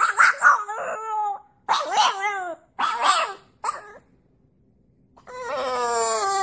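A dog vocalizing: several short pitched calls in the first four seconds, then one long call that falls in pitch near the end.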